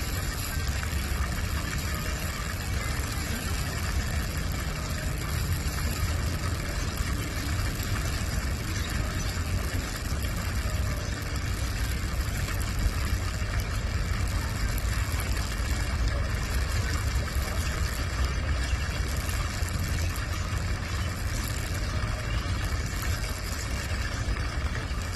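Falling water: a steady rushing with a heavy low rumble underneath.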